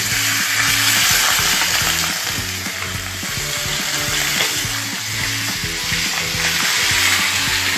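Fish frying in hot oil in a pan, with a steady sizzle and short knocks of a spoon moving the pieces in the pan.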